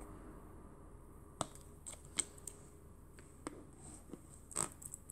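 A handful of short, sharp clicks and taps, about seven spread unevenly over a few seconds, from diamond-painting work: small resin drills being picked up and set down on the adhesive canvas.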